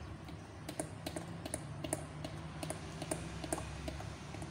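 Metal spoon ticking against the side of a glass bowl while stirring cake batter: quick, irregular ticks, about four a second.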